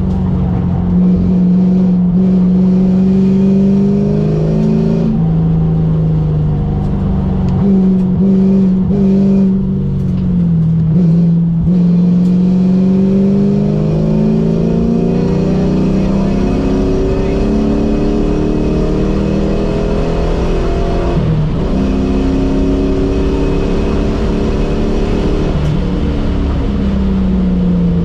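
A Ford SN95 Mustang's engine, heard from inside the cabin, is driven hard around a track. Its pitch climbs under acceleration and falls back at shifts and under braking several times, over steady road and wind noise.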